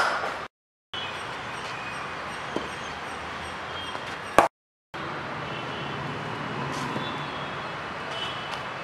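A leather cricket ball cracking off a cricket bat, then about four seconds later another sharp knock of the ball, over a steady outdoor background with faint high bird chirps. The sound drops out completely for a moment twice.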